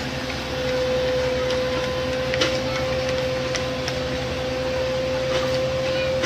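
Machinery running steadily, a low hum under a constant whine, with a few sharp clicks about two and a half and three and a half seconds in.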